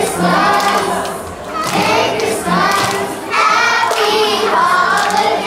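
A children's choir singing together, many young voices holding and shifting sustained notes.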